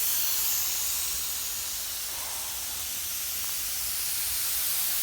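Irrigation sprinkler heads spraying water while the zone runs: a steady hiss.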